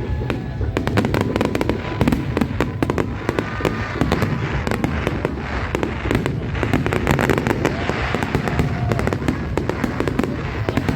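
Fireworks going off: a dense, continuous run of bangs and crackles, with a couple of short whistling glides mixed in.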